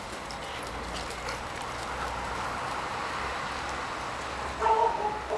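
A dog barks near the end, over a steady background hiss with faint scattered clicks.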